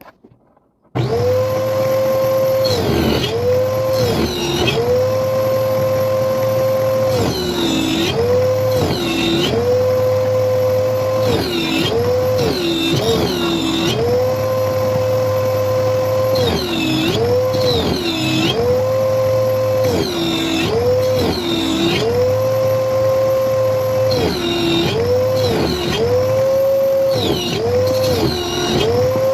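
A high-speed electric woodworking power tool motor running, its pitch dropping briefly each time it takes a cut into wood and recovering between cuts, again and again. The sound starts about a second in.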